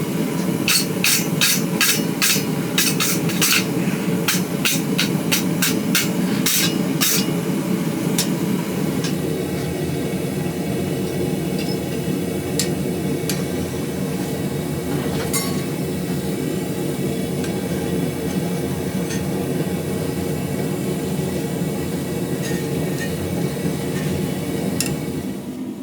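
Hammer blows on steel at the anvil while forging a BBQ fork: a quick run of strikes, about three a second, for the first eight seconds or so, then only a few scattered blows. A steady low hum runs underneath.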